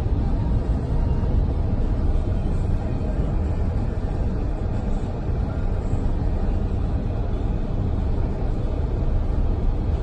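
A car driving at steady speed, heard from inside the cabin: an even low rumble of road and engine noise.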